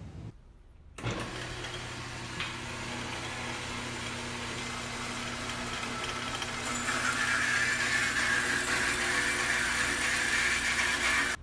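Ellis horizontal metal-cutting bandsaw running with a steady motor hum. About seven seconds in, the blade bites into the steel angle iron and a louder, higher cutting sound joins the hum.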